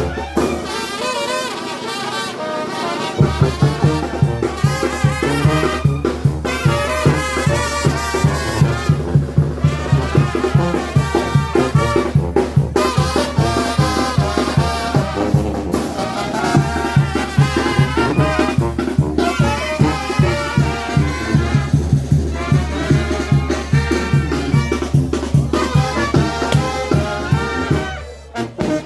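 Brass band music with trumpets and trombones over a steady, pulsing low beat; the music dips briefly near the end.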